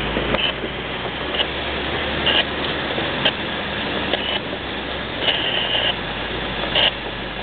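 Cabin noise of an off-road 4x4 crawling over a rough gravel track: a steady low engine drone under a wash of road noise, with short high-pitched squeaks from the body over the bumps several times.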